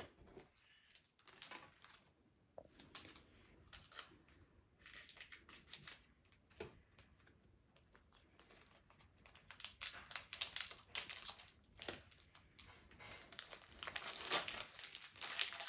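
Foil wrapper of a Pokémon card booster pack crinkling and tearing as it is handled and opened, in irregular bursts of rustling that grow busier and louder in the last few seconds.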